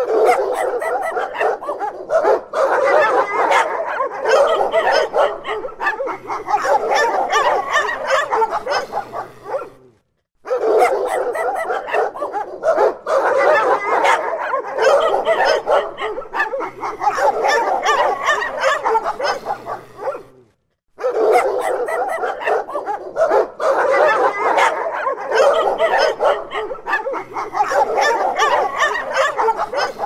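A large pack of dogs barking all at once in a dense, overlapping chorus. It breaks off for a moment twice, about ten and twenty-one seconds in, where the recording starts over.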